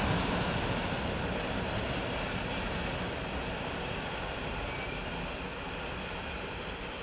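Freight train of tank wagons running away along the track: a steady noise of wheels on rails that slowly grows fainter as the last wagons recede.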